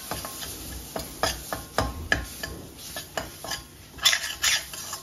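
Metal spatula scraping and clicking against a stainless steel kadai, irregular strokes, while stirring a wet spice paste into roasted gram flour. The strokes grow louder about four seconds in.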